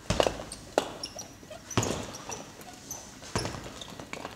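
Jabs landing on a heavy punching bag: four sharp thuds, unevenly spaced, the last after a longer gap.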